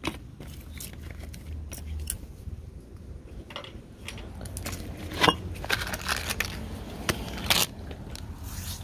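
Irregular sharp clicks and cracks of a plastic makeup palette being torn apart and its pieces knocked on concrete, with two louder cracks about five and seven and a half seconds in.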